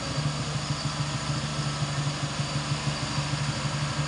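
A heavy cargo truck's diesel engine running at low revs as the truck creeps along in low gear, a steady low drone.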